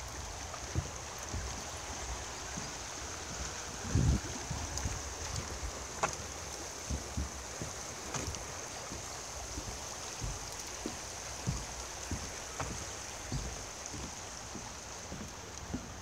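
Footsteps thudding on a footbridge deck at walking pace, about two a second, over a steady hiss, with a louder thump about four seconds in.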